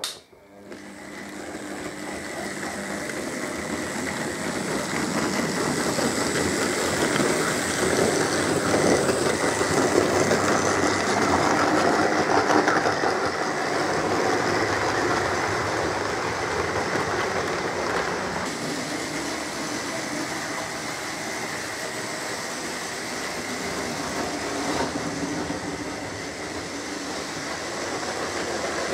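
Model railway train running along its track, its small electric motor whirring and its wheels rattling over the rails with a thin steady whine. It builds up over the first few seconds and is loudest as the coaches pass close by, then runs on steadily.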